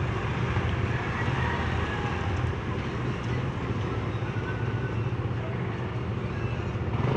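Street noise carried by a motor vehicle engine running steadily at a low pitch.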